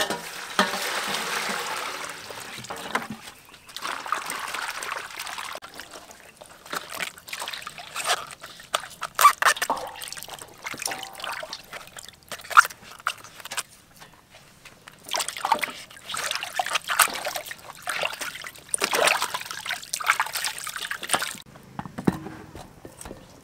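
Water poured from a plastic bucket into a steel basin, then hands sloshing and rinsing vegetables in the water, with irregular splashes, trickles and a few sharp knocks.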